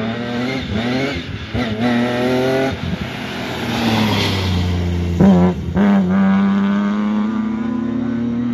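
BMW E36 3 Series rally car accelerating hard past spectators. The engine note climbs and drops several times in the first three seconds as it shifts up through the gears, is loudest as the car goes by about four seconds in, then holds a steady note as it pulls away down the stage.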